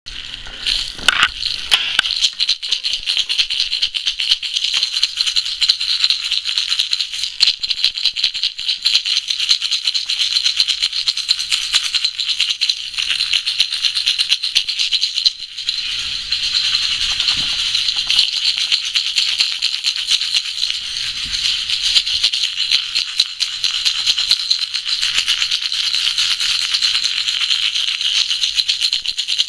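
A rattle shaken rapidly and continuously, a dense run of fast clicking with a short break about halfway through.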